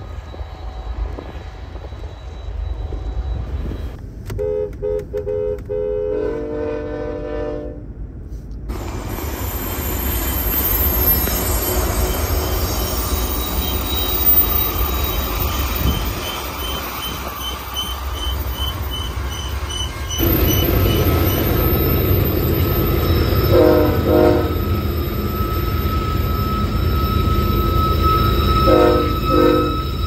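Diesel freight locomotives in passing: a horn sounds a long chord with a change in pitch partway through, then a long freight train rolls by with steady wheel-and-rail noise and a high wheel squeal. Later a second freight led by BNSF locomotives approaches with a louder low diesel rumble and short horn blasts in two pairs, over a steady high ringing tone.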